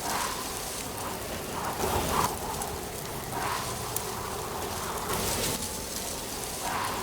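Autumn wind gusting through trees with dry leaves rustling, swelling and easing every second or two.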